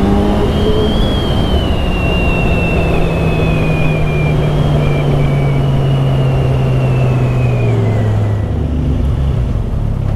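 Kawasaki Z1000SX (Ninja 1000) inline-four engine running on a light, steady throttle just after accelerating. Its pitch sinks slowly, then drops about eight seconds in as the bike eases off. A faint high whine falls with it, and wind rushes over the helmet-mounted microphone.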